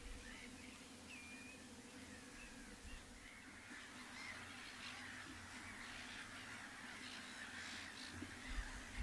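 A distant flock of birds calling. A few faint calls early on build into a busy chorus of harsh calls from about four seconds in, with a low rumble near the end.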